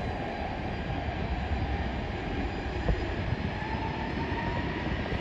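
Rolls-Royce Trent 700 turbofans of an Airbus A330-300 running at high power as the airliner accelerates along the runway: a steady, deep rumble with a faint high whine.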